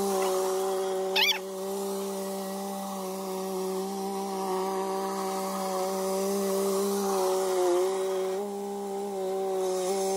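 Small compact tractor's engine running steadily, its pitch sagging briefly about three quarters of the way through. About a second in, a short high warbling call cuts through.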